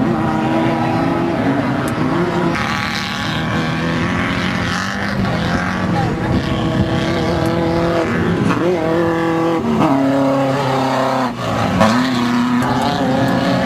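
Off-road desert race buggy's engine running hard under a rushing noise, its pitch dipping and climbing back a few times in the second half as the throttle is lifted and reapplied.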